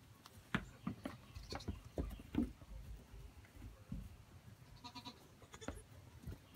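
Pygmy goat kids' hooves knocking and tapping on a wooden shed floor in scattered sharp knocks, with a brief bleat from a kid about five seconds in.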